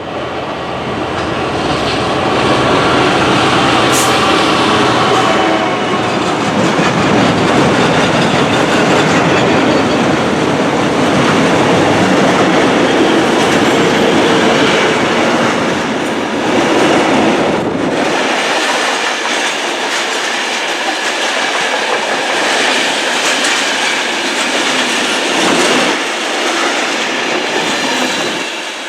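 A train passing close by on the line, loud and steady for most of the stretch; its deep rumble drops away about two-thirds of the way through.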